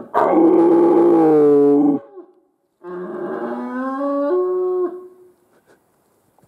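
Deer stag roaring in the rut: two long, loud calls, the first falling slightly in pitch and the second climbing in steps.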